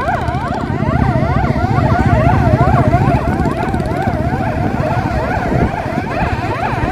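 Several police vehicle sirens sounding together in a fast up-and-down warble, overlapping at different rates, over a low rumble of engines and road wind.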